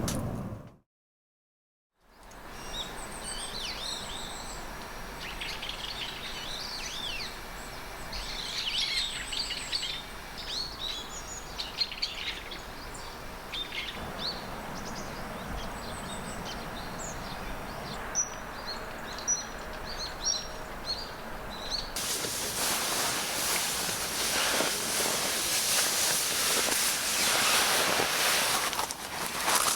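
Small birds chirping and trilling over a steady background hiss. About two-thirds of the way in, a louder, even rushing noise takes over.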